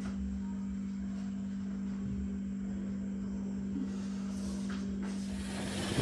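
A steady low hum, with a faint light click about five seconds in.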